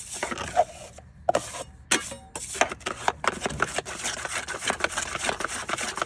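Hand-stirring 20-minute setting-type drywall joint compound with a tool, scraping against the container. A few separate scrapes at first, then quick, steady scraping strokes from about two and a half seconds in.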